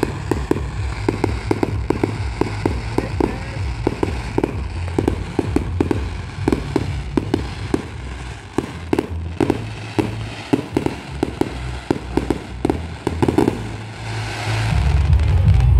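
Fireworks going off in a rapid string of sharp crackling pops, several a second, over a steady low rumble, swelling into a louder burst near the end.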